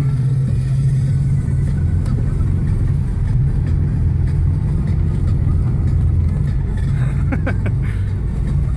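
Car engine running with a steady low drone, with a brief higher sound about seven seconds in.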